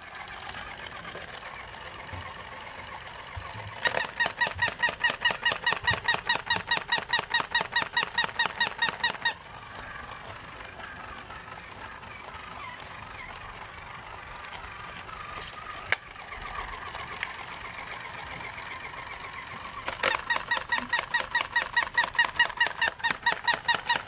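Battery-powered plush puppy toy yapping from its electronic sound unit: a fast, even run of high-pitched yaps, about seven a second, lasting about five seconds. The yapping starts again near the end. In between there is only a quieter steady background and a single click.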